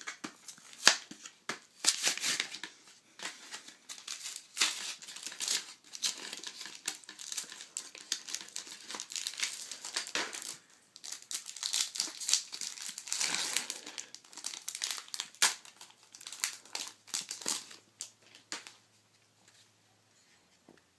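Foil wrapper of a Yu-Gi-Oh booster pack crinkling and tearing as it is opened by hand, an irregular run of crackles and rustles that dies away a couple of seconds before the end.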